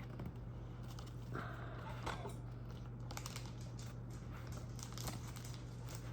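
Pokémon cards and a foil booster-pack wrapper being handled, with light crinkling and small clicks and slides of cards against each other, over a steady low hum.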